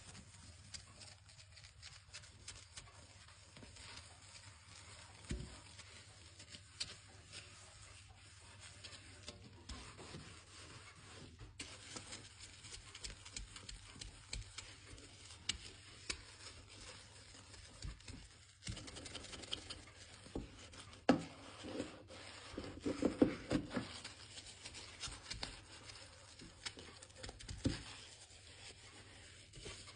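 Hand cleaning: rubbing and scrubbing with many small clicks and knocks, busier and louder for a few seconds about two-thirds of the way through.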